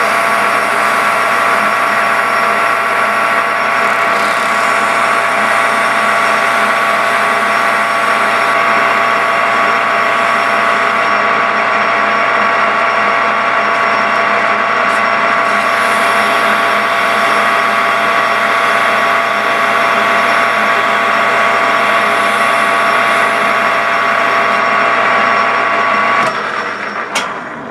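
Small lathe running steadily with a whining mix of motor and gear tones while a spinning piston is polished with 4600-grit sandpaper. Near the end the lathe is switched off and the sound dies away.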